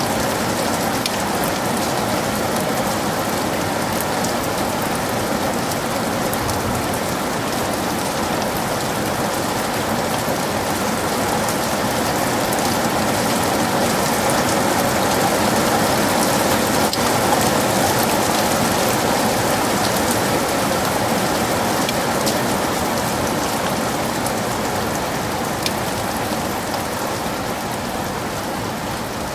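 Heavy rain falling steadily in a forest, a dense even hiss with scattered drop ticks.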